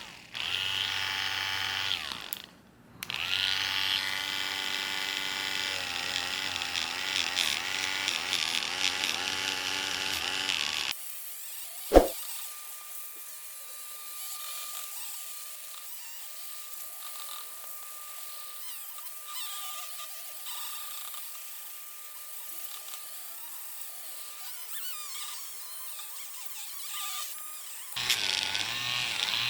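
Small handheld rotary tool with a polishing head running against a clear plastic part under coarse polishing compound; its pitch wavers as it is pressed on. It stops briefly and starts again about two and a half seconds in. About eleven seconds in it gives way to a faint steady high tone, with one sharp click a second later, and the motor starts again near the end.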